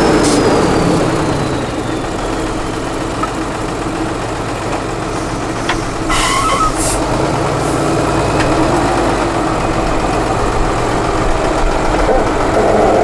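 Diesel engine of a Tatra 8x8 trial truck running at low revs as the truck crawls through a ditch, the revs dropping over the first second or two and then holding steady. A brief hiss about six seconds in.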